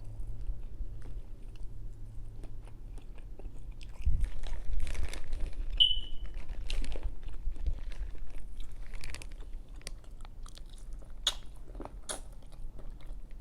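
A person eating seafood boil close to the microphone: chewing and mouth sounds with scattered small clicks, busiest and loudest from about 4 to 9 seconds in.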